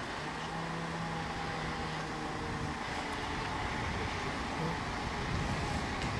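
Steady rumble of the mobile crane's diesel engine running, with a low steady hum for the first couple of seconds.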